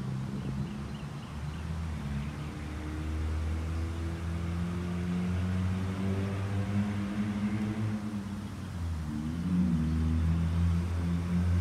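A motor engine running with a steady low hum, its pitch slowly rising over several seconds and growing louder near the end.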